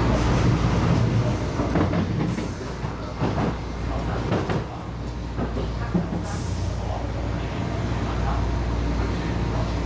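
MTR East Rail line train running along the track, heard from inside the carriage: steady running noise and low hum, with scattered clicks from the wheels over the rails.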